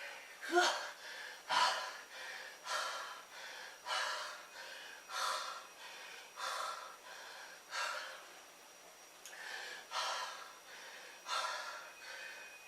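A man breathing hard and fast, with a heavy gasping breath about every second: he is out of breath from push-ups, recovering between sets.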